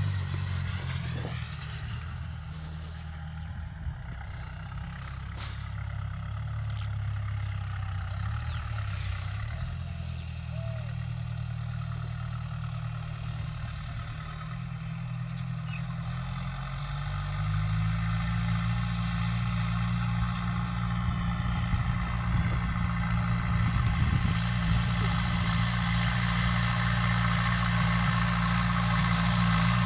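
Farm tractor's diesel engine running steadily under load as it pulls a mounted seed drill. It grows louder as the tractor comes closer, and its note steps up slightly a little past halfway.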